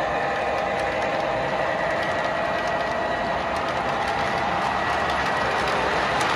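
Menards O gauge tank cars with die-cast metal wheels rolling along three-rail toy train track: a steady running rumble with faint, irregular clicks from the wheels over the track.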